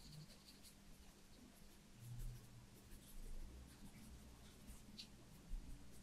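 Faint scratching of a thin paintbrush stroking gouache paint onto paper. There is a soft low thump about two seconds in and another near the end.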